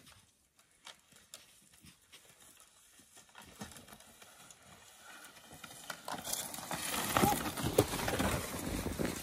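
Footsteps crunching in snow: faint, scattered steps at first, then quick, loud running crunches from about six seconds in, with the jostling of a handheld phone.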